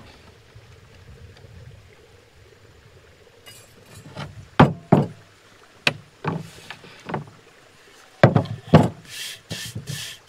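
Several sharp knocks and thuds, unevenly spaced, from about four seconds in, then quick repeated scraping strokes near the end, as from cooking utensils and cookware being handled.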